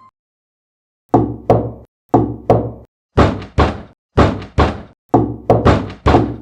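Knocking on a door: after about a second of silence, sharp knocks come in quick groups of two and three, a group roughly once a second.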